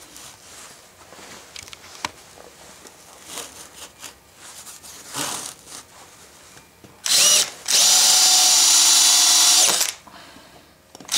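Power drill with a countersink bit countersinking screw holes in plywood. After quiet handling sounds, it gives a short blip with a rising whine about seven seconds in, then runs steadily for about two seconds as it cuts. It starts up again at the very end.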